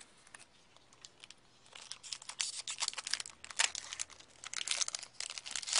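Foil hockey card pack wrapper being torn open and crinkled by hand. The crackling starts about a second and a half in and goes on in quick irregular bursts.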